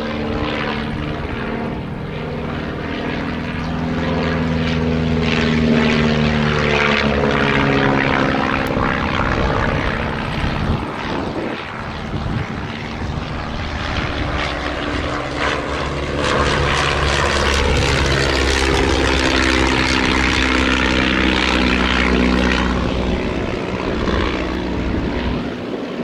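Two 1930s biplane trainers, a Stampe SV4 and a de Havilland Tiger Moth, running their propeller piston engines in flight, the engine note shifting in pitch and swelling loudest twice as they pass.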